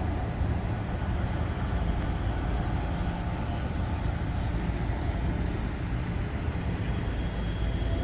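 Steady low vehicle rumble, with no distinct events.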